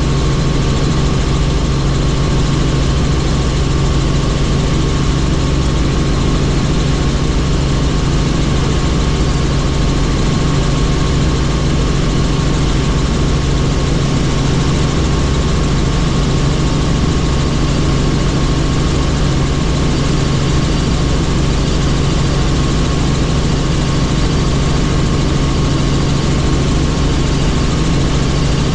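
Helicopter engine and rotors running with a steady drone and a strong low hum.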